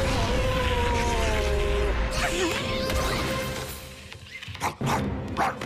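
Cartoon soundtrack: music with held, slightly falling notes, fading around the middle, then a few sharp slapstick knocks near the end.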